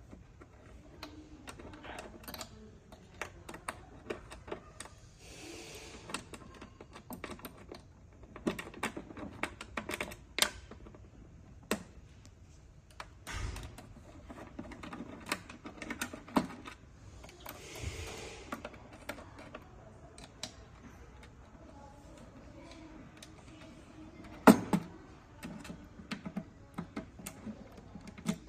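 Irregular small metallic clicks and taps of a hex key working screws and of parts being handled while a small electric motor is unbolted. There are two brief scraping hisses, and a single louder knock near the end.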